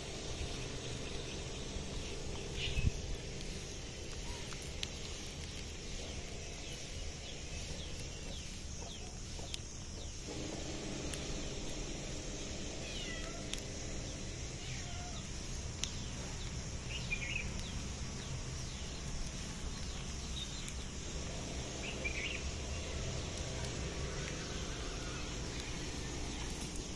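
Short high bird chirps every few seconds over a steady low background hum, with one brief thump about three seconds in.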